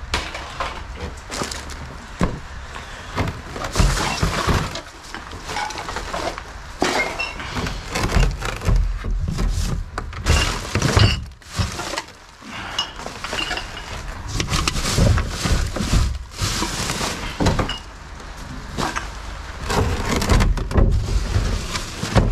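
Glass bottles, cans and plastic containers clattering and clinking as they are tipped and tossed out of one wheelie bin into another: many irregular knocks and rattles.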